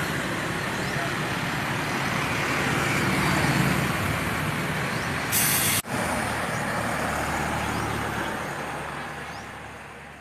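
Roadside traffic noise: a steady wash of passing cars and trucks. A short loud hiss comes about five seconds in and breaks off suddenly, and the sound fades out near the end.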